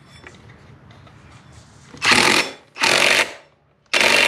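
Cordless electric impact gun hammering in three short bursts, the first two about two seconds in and the last near the end, as it runs a nut down on a Honda ADV 150 scooter's CVT pulley.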